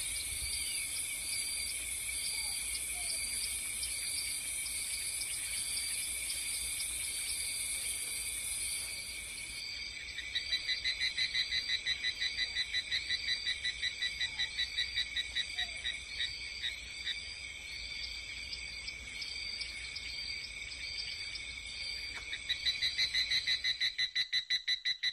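Tropical insects calling from the vegetation: a steady, high-pitched buzzing chorus. About ten seconds in, a rapid pulsing call joins it, and it grows louder near the end.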